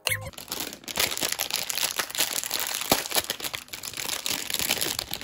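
Raw onion wedges crackling and crinkling: a steady crisp rustle dotted with small clicks, and a sharper click about three seconds in.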